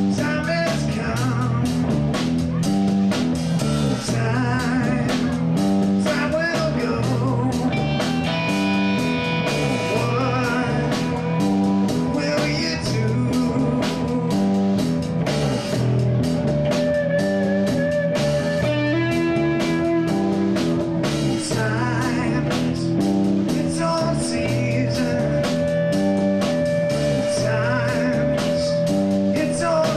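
Live rock band playing with drum kit, electric bass and electric guitar, a steady beat with long held notes over it.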